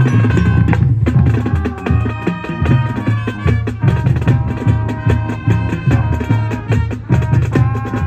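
Marching band playing loudly: brass over a steady drumline beat with bass drums and snare, the full band coming in at once right at the start.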